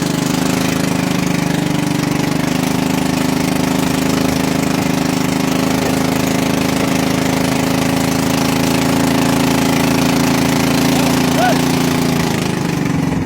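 Boat engine running steadily with a rapid, even pulsing beat, as the boat motors across the lake.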